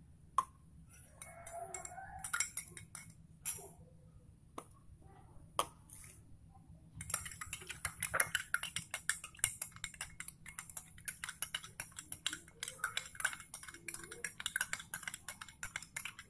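Metal teaspoon stirring liquid in a small drinking glass, clinking rapidly against the glass from about seven seconds in. Before that, a few scattered taps and clicks as the spoon and a small plastic bottle are handled.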